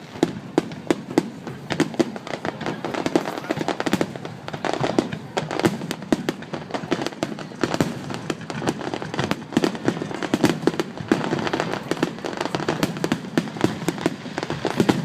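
Aerial fireworks in a finale barrage: shell bursts going off rapidly one after another, several bangs a second, overlapping with their echoes.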